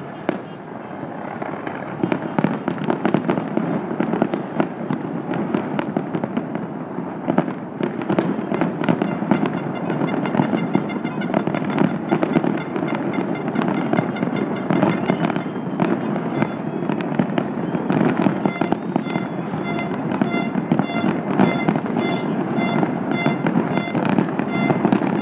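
Large fireworks display: a continuous rapid crackle of many small bursts with frequent bangs, growing denser and louder about two seconds in.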